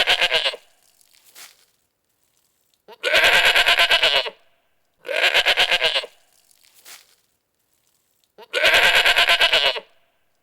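Goat bleating four times, each bleat about a second long with a quavering tone, with pauses of one to two seconds between them.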